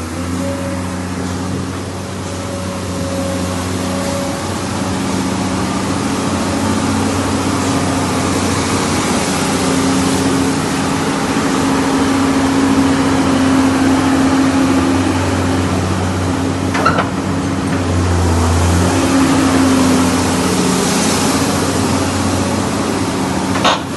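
Komatsu PC200 excavator's diesel engine running steadily, getting louder with a rising hiss over the middle of the stretch. Two short sharp clicks come, one about two-thirds through and one near the end.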